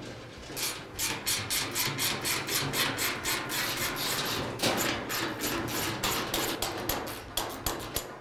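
Screws being turned out of a gas grill's sheet-metal back panel with a hand screwdriver: a quick, even run of clicks, about four a second.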